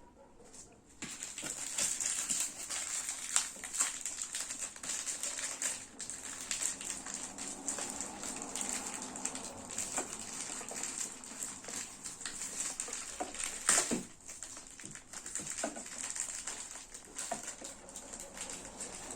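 Packaging rustling and crinkling as it is handled and opened, with many small sharp clicks and one louder click near the end; it starts about a second in.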